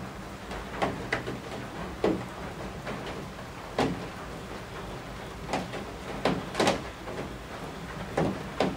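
Steady rain with heavy drops from the roof eaves striking with sharp, irregular knocks, about nine of them, some close together in pairs.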